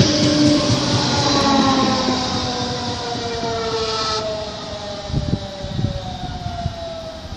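DB Class 425 electric multiple unit pulling away, its electric drive whining in several tones that glide slowly downward while the train's running noise fades. The high rushing of the wheels stops about four seconds in, and a few low rumbles follow.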